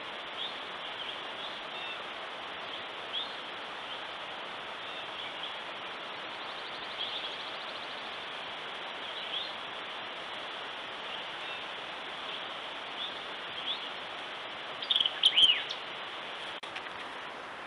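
Wild birds chirping now and then over a steady hiss, with a louder run of several sharp, downward-sliding chirps about fifteen seconds in.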